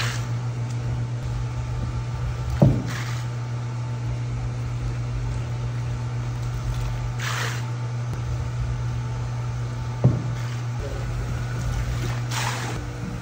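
Electric pump humming steadily as it pulls cleaning solution through a soaked rug and recirculates it, with water splashing in short hissing surges. Two sharp knocks come about two and a half seconds and ten seconds in.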